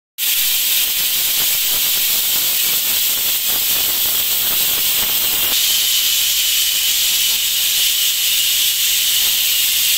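Stovetop pressure cooker whistling: steam blasting out from under its weight valve in a loud, steady hiss. This is the seventh whistle, the count at which the cook turns off the heat. The hiss shifts slightly in tone about halfway through.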